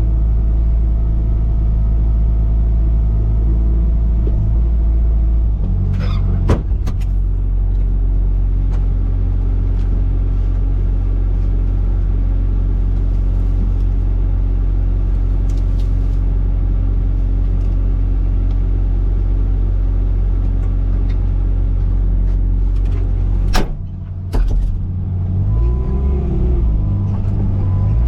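Bobcat T595 compact track loader's diesel engine running steadily under work, with a few sharp clanks about six seconds in and more clanks near the end, where the engine note briefly dips and wavers.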